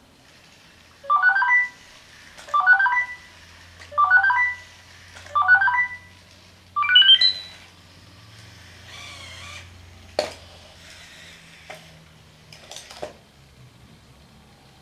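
Sony Aibo ERS-210 robot dog sounding its electronic tone calls: five short rising chimes, about one every second and a half, the last one pitched higher, over a low hum from its motors. After them come fainter warbling tones and a sharp click about ten seconds in.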